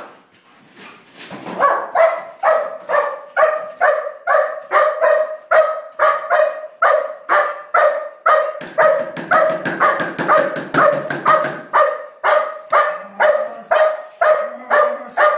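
A large dog barking in a steady rhythm, about two barks a second, at a helper holding a stick and padded sleeve in protection training. The barking starts about a second and a half in and keeps going without a break.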